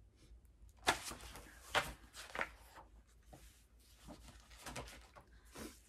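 Paper pages of a hardcover picture book being turned, in a few quick rustling swishes, the loudest about a second in and just before two seconds, then softer page handling.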